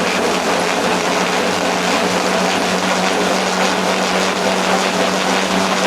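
Motorised dog treadmill running at about 16 miles per hour with a dog running on it: a steady mechanical hum with a constant low tone under a rushing rattle.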